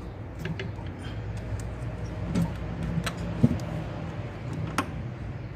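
Scattered sharp clicks and knocks of metal parts and hand tools as an engine's intake manifold is worked loose, the loudest about three and a half seconds in, over a steady low hum.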